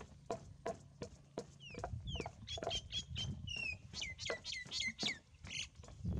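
Knife chopping steadily on a cutting board, about three strokes a second. A bird chirps rapidly in high notes that fall in pitch, from about two seconds in to near the end.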